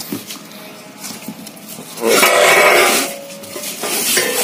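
Motorcycle parts being handled in a cardboard box: cardboard rustling and metal parts knocking. A loud scraping rustle with a faint metallic ring lasts about a second, starting about two seconds in.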